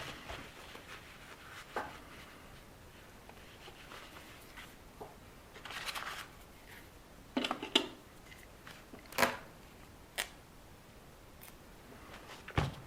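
Hands working on an RC car tyre and wheel: scattered sharp clicks and taps, with a brief rustle about six seconds in.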